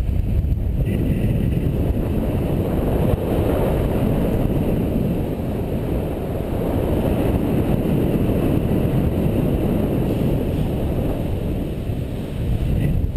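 Steady rush of wind buffeting the microphone of a paraglider pilot's camera in flight.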